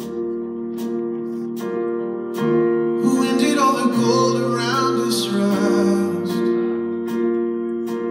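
A live band playing a slow song, with sustained chords over a soft, regular beat. A male voice sings a phrase from about three seconds in.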